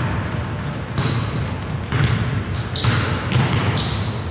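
A basketball bouncing on a hardwood gym floor, with several thuds about a second apart, and sneakers squeaking in short high chirps as players run the court.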